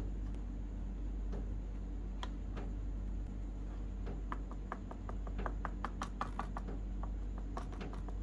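A fork pricking thin rolled potato dough on a board: a quick run of light clicks as the tines tap through to the surface, starting about four seconds in and easing off near the end. Before that, only a few soft knocks as the dough is rolled, over a steady low hum.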